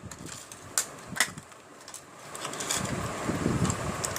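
Handling noise from items being unboxed: two short sharp clicks a little after one second in, then a low rustling that grows louder toward the end.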